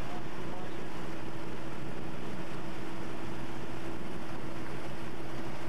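A motorboat's engine running steadily at an even pitch, under a constant hiss of wind and water.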